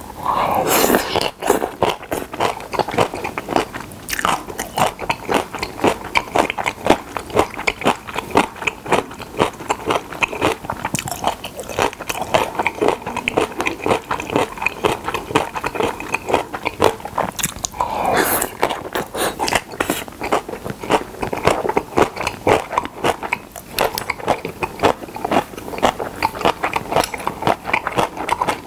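Close-miked chewing of pressed pork slices and seasoned dried radish strips: a dense run of short, crunchy bites and chews.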